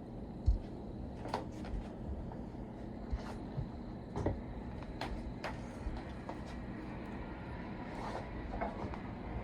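Scattered metallic clicks and knocks, with one louder thump about half a second in, from a camshaft being fed into a Ford small-block's cam bearings with an install tool. A steady low hum runs underneath.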